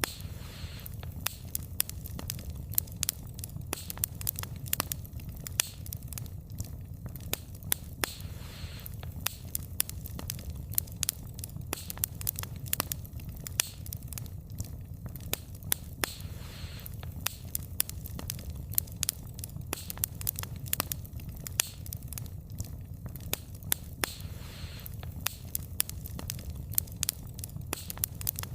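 Wood fire crackling, with many irregular sharp pops and snaps over a steady low rumble. A soft hiss swells about every eight seconds.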